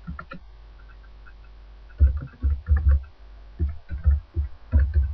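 Typing on a computer keyboard: a few faint taps, then from about two seconds in a quick run of about ten keystrokes.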